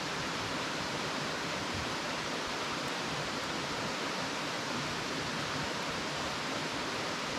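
River water rushing steadily, an even hiss.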